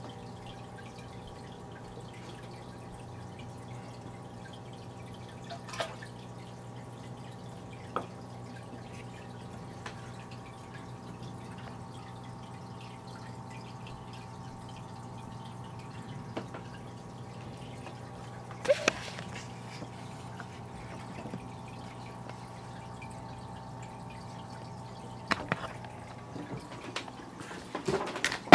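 Aquarium water trickling and dripping, with bubbles rising in the tank, over the steady hum of the tank's equipment. A few sharp knocks come through, the loudest about two-thirds of the way in, with a cluster of them near the end.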